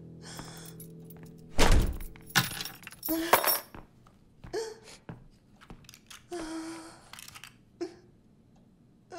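A door thudding shut about a second and a half in, followed by keys and handbag rattling. Then a woman's short, catching sobs, breaking out every second or so.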